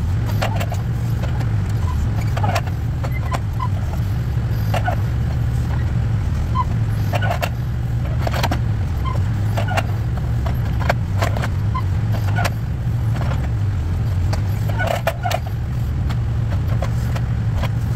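Backhoe engine running steadily under load while it digs, with irregular sharp knocks and clanks from the bucket and arm working the dirt.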